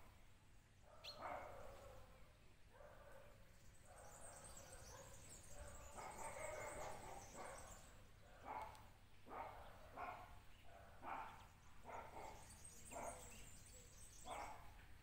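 Faint, repeated short animal calls like distant barking, coming roughly once a second from about eight seconds in, with faint high chirping in between.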